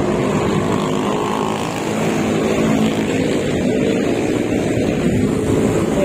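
Steady noise of busy city road traffic, with the engines of many vehicles running as they pass.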